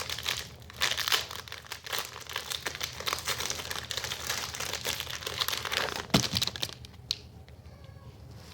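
The plastic wrapper of a baseball card pack being torn open and crinkled, with a sharp snap about six seconds in. The crinkling stops about a second before the end.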